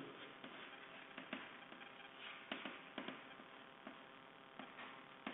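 Faint, irregular taps and short scratching strokes of chalk on a blackboard as it is drawn with.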